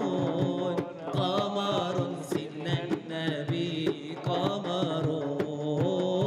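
A male munshid singing a long, wavering melismatic line of an Arabic devotional praise song (inshad), with hand drum strokes underneath.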